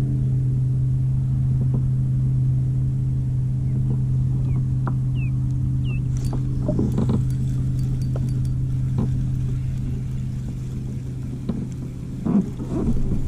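A steady low motor hum, constant in pitch, runs throughout. A few sharp clicks and knocks come in the middle and again near the end as the fishing rod and spinning reel are handled.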